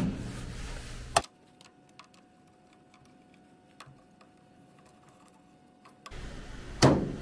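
Faint, irregular light clicks from a Ryobi cordless hot glue gun as it is worked against a microwave door, over near silence. A sharper click comes about a second in and another near the end.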